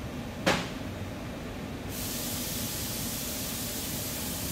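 A single sharp click, then a steady pressurised hiss that starts about two seconds in and lasts about three seconds, over a low steady hum.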